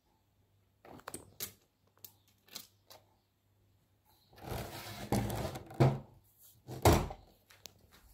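A few light knocks and clicks, then about two seconds of rustling handling noise with a loud thump, and another loud thump a second later, as the phone is moved around.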